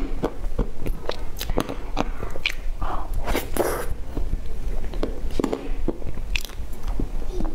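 Chewing and wet mouth sounds of eating soft cream-frosted sponge cake, with a spoon scooping more cake. The sound is made of many short, irregular clicks and smacks.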